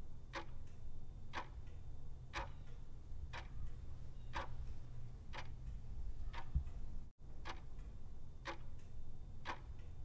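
A clock ticking steadily, about once a second, over a low steady hum; the sound cuts out for an instant a little past seven seconds in.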